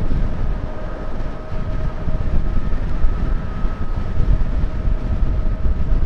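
Wind rushing and buffeting over the microphone of an e-bike coasting downhill at about 38–39 mph, with a faint steady whine underneath.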